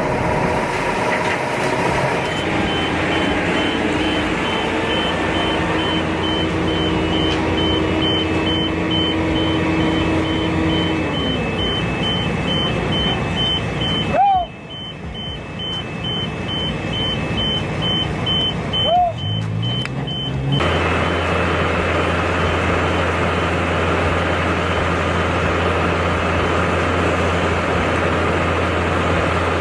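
Heavy construction machinery running, in several short clips that cut abruptly from one to the next, with a regular high-pitched beeping through the middle part.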